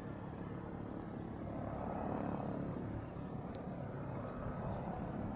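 Low, steady outdoor rumble with no bird call, swelling slightly about two seconds in.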